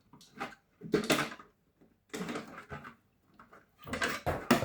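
Plastic parts of a toy washing machine being handled during disassembly: a few irregular knocks and rattles, the loudest about a second in and near the end.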